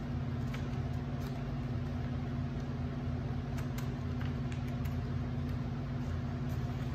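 A steady low motor hum, with a few faint snips of scissors cutting paper now and then.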